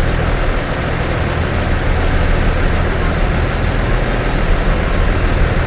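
A bus's heavy diesel engine running steadily, a deep even drone with no horn sounding.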